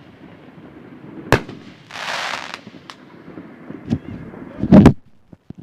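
Fireworks fired from racked tubes going off: a sharp bang about a second in, a short hiss around two seconds, a small pop, then a loud double bang near the end, the loudest of them.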